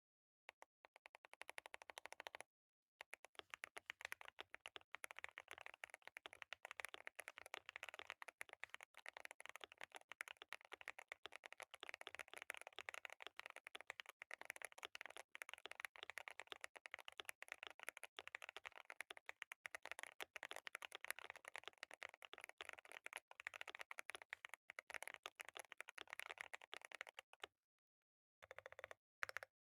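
Fast continuous typing on a mechanical keyboard with Gateron Silver Pro linear switches: a quick stream of keystroke clacks. There is a brief pause early on and another near the end, followed by a few last key presses.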